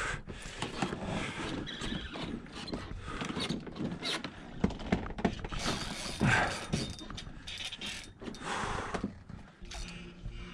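Tsunami Evict 4000 spinning reel's loose drag clicking in uneven spurts as a hooked redfish pulls line, mixed with knocks and scrapes of the plastic kayak and hands against a dock piling.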